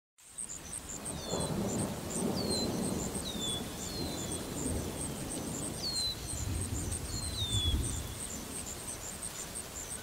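Distant thunder rumbling low, swelling twice, under a nature ambience: a bird gives short falling whistles about once a second, and a thin, high chirping repeats about three times a second.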